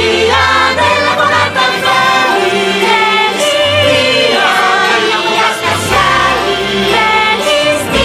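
A festive song with a choir singing held, wavering notes over full instrumental backing.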